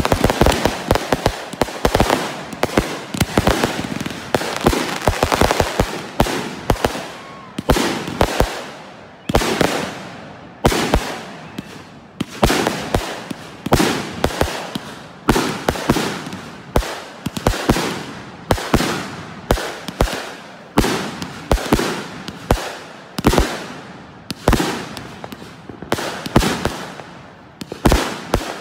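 Aerial fireworks bursting: a dense barrage of overlapping bangs for the first several seconds, then a steady run of single bangs about one a second, each fading away over about a second.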